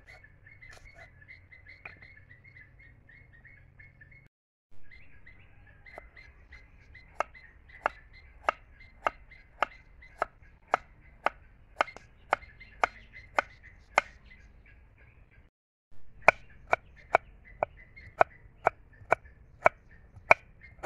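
Large knife chopping carrots on a wooden chopping board: a few soft cuts at first, then a regular series of sharp knocks, a little under two a second, broken briefly about two-thirds through.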